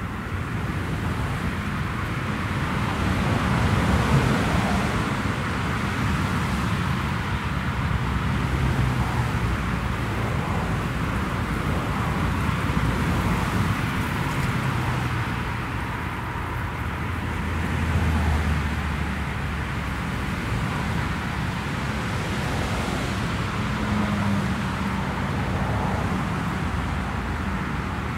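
Twin turboprop engines and propellers of a Bombardier Dash 8 Q400 running at taxi power. It is a steady drone and hiss with low propeller hums that waver and swell as the aircraft turns and rolls past.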